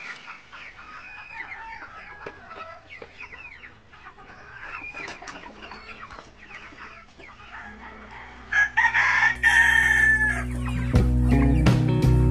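Chickens clucking and squawking, then a rooster crows once about eight and a half seconds in. Background music with a steady beat comes in about then and is the loudest sound to the end.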